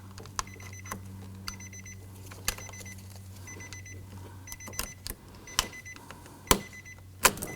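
The car's warning chime dinging about once a second over a steady low hum, with scattered sharp clicks and taps of parts being handled on the open door, the loudest near the end.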